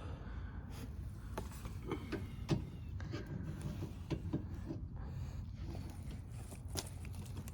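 Scattered sharp metallic clicks and knocks of a 14 mm socket on a breaker bar being fitted to and worked on the rear brake caliper bolts, over a low steady background rumble.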